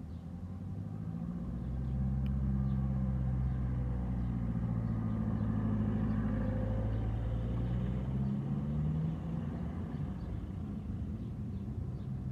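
An engine running, its low hum growing louder over the first two seconds, holding, then dropping back after about eight seconds, as of a vehicle passing.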